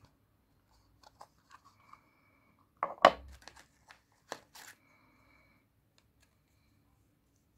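Packaging being handled: scattered small rustles and clicks, with a louder crinkling, tearing burst about three seconds in and a shorter one just after four seconds.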